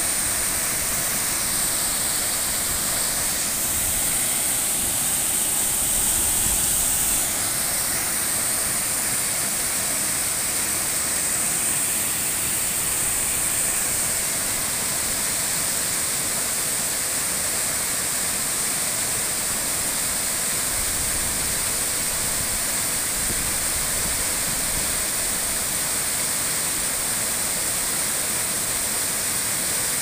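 Waterfall pouring over a rock ledge into a pool: a steady rush of falling water.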